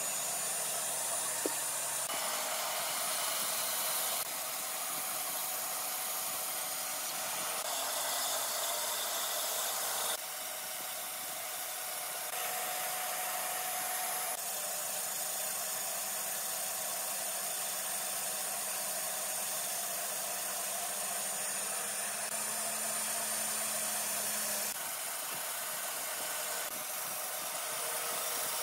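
Band saw running and cutting through a wooden board, a steady whir whose tone changes abruptly every few seconds.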